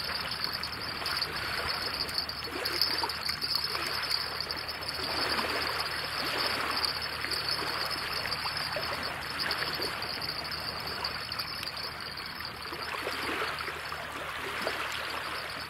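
Water running steadily, like a small stream trickling, swelling and easing every second or two, with a steady high-pitched hiss above it.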